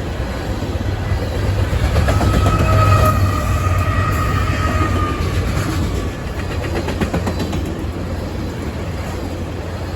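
Freight train of tank cars rolling past, a steady low rumble of wheels on rail. A high squeal of wheels rises over it from about two seconds in and fades about six seconds in. A quick run of clickety-clack follows as wheels cross rail joints.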